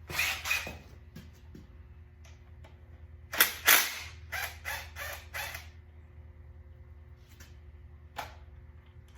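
Tools and metal engine parts being handled: a series of sharp clanks and knocks, loudest a little over three seconds in, with scattered smaller ones after and a single knock near the end, over a steady low hum.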